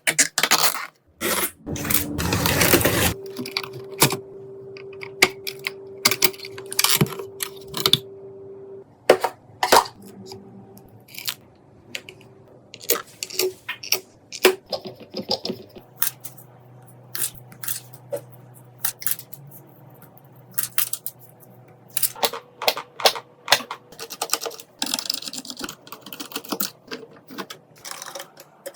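Irregular clicks, taps and rustles of computer parts and packaging being handled during a PC build, with a dense burst of rustling about two seconds in.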